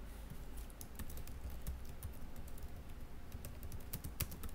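Typing on a computer keyboard: a quick, irregular run of keystrokes over a low steady hum.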